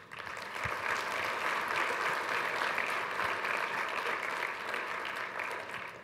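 Audience applauding, building up over the first second and tailing off near the end.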